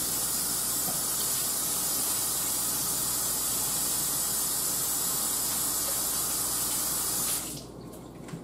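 Kitchen sink faucet running steadily into the sink as hands are washed under it, shut off abruptly about seven seconds in.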